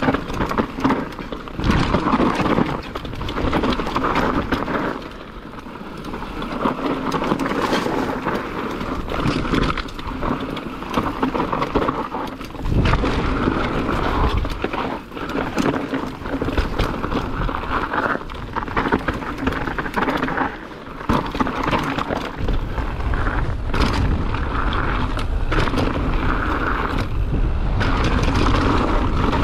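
Mountain bike descending a rough downhill trail: tyres rolling over dirt and rocks, the bike rattling and knocking over bumps, with a rumble of wind noise. The level eases briefly twice.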